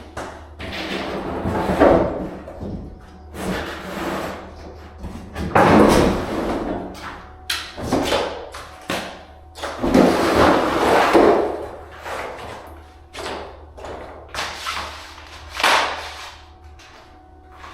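Luxury vinyl planks being handled and laid on the floor: an uneven run of thumps, knocks and sliding scrapes.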